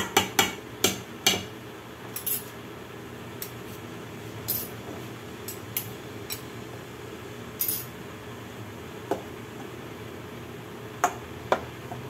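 A spoon knocking against a pot or bowl in a quick run of sharp taps during the first second or so. Then come scattered lighter clinks and short scrapes of kitchen utensils, and two more taps near the end.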